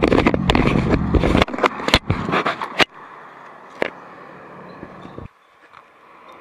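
Scraping, clicking handling noise on a handheld phone's microphone over a loud rumble of roadside traffic; about three seconds in it drops to a quieter traffic hum with a few single clicks.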